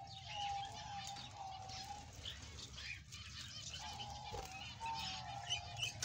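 Budgerigars chirping and warbling, with many short high chirps throughout. Underneath runs a steady, slightly wavering lower tone that drops out for about a second around the middle.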